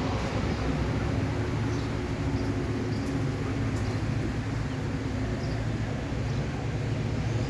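Toyota 22RE four-cylinder engine running steadily under a broad, even rushing noise.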